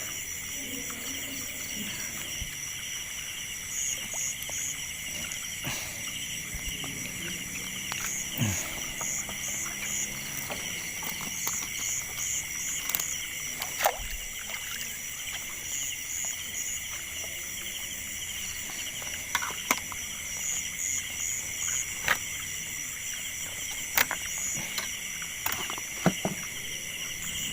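Chorus of insects and frogs: steady high trilling, with short calls in groups of three or four repeating every few seconds, and a few scattered sharp clicks.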